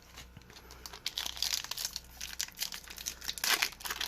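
Crinkling and rustling of a foil trading-card booster-pack wrapper being handled, a busy run of small crackles that picks up after about a second.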